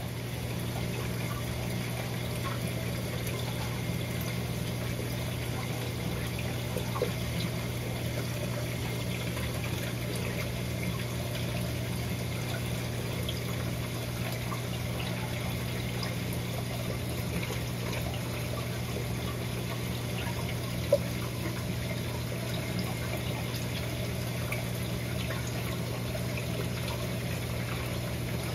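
Steady low hum with a continuous watery rushing, typical of an aquarium system's water pumps and circulating water. A single sharp click sounds about three-quarters of the way through.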